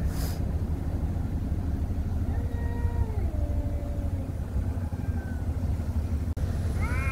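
Two domestic cats yowling at each other in a fight standoff: a low drawn-out yowl a couple of seconds in that drops in pitch, then a louder rising yowl starting near the end, over a steady low rumble. Such threat yowling is the sign of two cats squaring up to fight.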